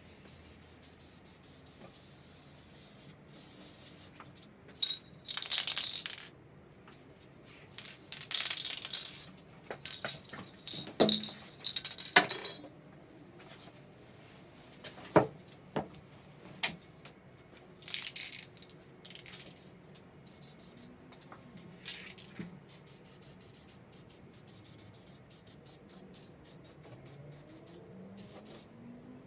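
Aerosol spray paint can hissing in three or four bursts of a second or two each, with scattered sharp clicks and light metallic knocks between and after them.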